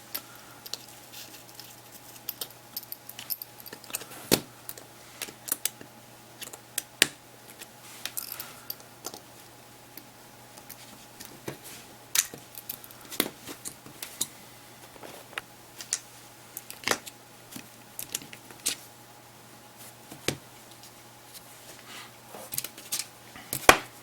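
Irregular small clicks and taps of a prying tool and small phone parts being handled while the player is taken apart, with a few louder knocks, over a faint steady hum.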